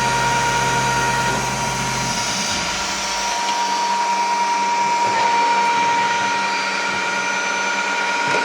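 Okuma & Howa STM 2V vertical milling machine running with its spindle at speed: a steady mechanical whine with a strong high tone. A low hum underneath drops out about two to three seconds in.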